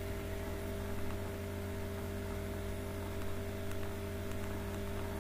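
Steady electrical mains hum, several fixed tones in a stack, over a faint hiss.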